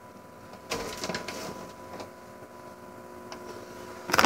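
Soft rustling and a couple of light clicks as packages are handled, over a steady faint high-pitched electrical whine; a loud crackle of a plastic pet-food bag being picked up starts right at the end.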